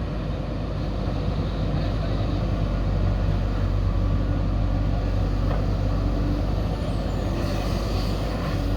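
Heavy diesel engine of earthmoving machinery running steadily, with a faint steady tone rising above it for a couple of seconds midway.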